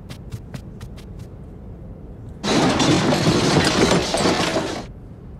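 Cartoon sound effects: a quick patter of small running footsteps that fades away. A little later comes a loud, crackling rush of noise that starts suddenly, lasts about two and a half seconds and dies away.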